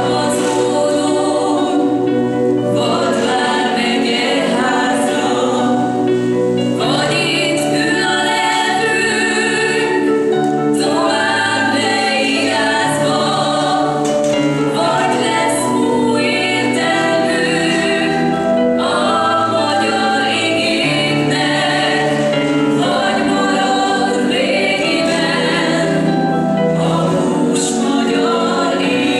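Slow choral music: a choir singing in long, held chords over a low sustained bass, with a new phrase beginning every four seconds or so.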